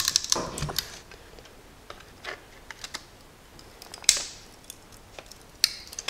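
Channel-lock pliers gripping and crimping a metal cigarette lighter socket set in a plastic dash panel: scattered metallic clicks and creaks, a cluster at the start and a louder crack about four seconds in.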